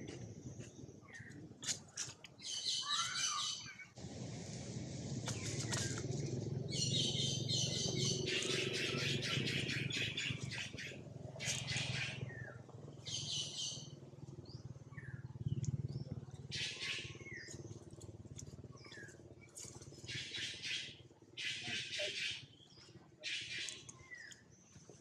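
Shrill, high-pitched animal calls come in short bursts about half a second to a second and a half long, repeated around ten times, with a few short gliding calls among them. A low steady hum runs underneath.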